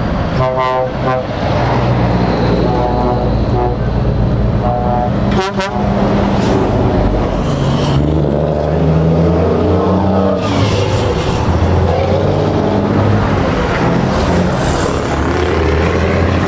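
Convoy of lorry tractor units passing close by, their diesel engines droning, with air horns sounded in short repeated blasts in the first few seconds. Later a deep engine drone rises and falls in pitch as more trucks go by.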